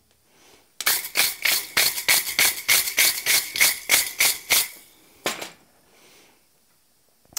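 Steel wire brush scrubbed quickly back and forth over hot forged iron on the anvil face, about four strokes a second with a faint steady ring underneath. The scrubbing stops a little past halfway, followed by one last stroke.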